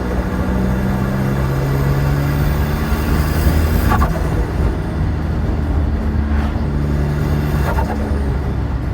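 Z19DT 1.9 CDTi diesel engine with a GT1756 turbo and an open Ramair induction kit, revving up twice. Each time the throttle is released, about four seconds in and again near the end, the turbo gives a short flutter as boost pressure surges back through the compressor.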